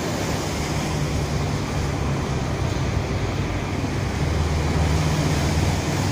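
Steady seafront outdoor noise: wind and waves washing onto the rocks mixed with the rumble of road traffic, growing a little louder in the second half.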